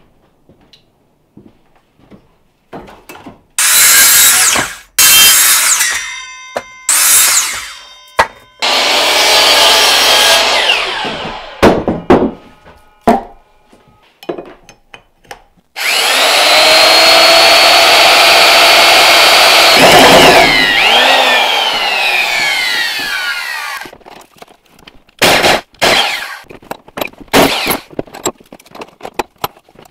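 Power tools cutting wood: several loud cuts in the first half, then a long steady run of about four seconds. After it the motor winds down with a falling whine, followed by scattered knocks and clatter of wood.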